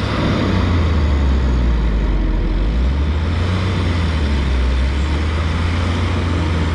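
Heavy engines running hard under load: a Tata 1613 CNG truck straining to pull out of soft sand while a crawler excavator's engine works to push it from behind. Steady deep drone throughout. The truck lacks the power to climb out with its load, which the owner puts down to its running on CNG.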